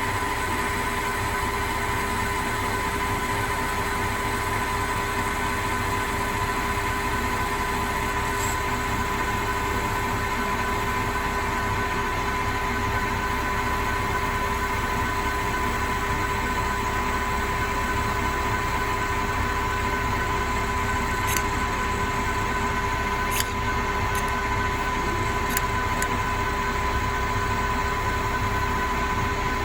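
CNC lathe running with its spindle turning during a light finish cut on a hardened D2 tool steel roller: a steady machine whine over a low hum, with a few faint ticks in the second half.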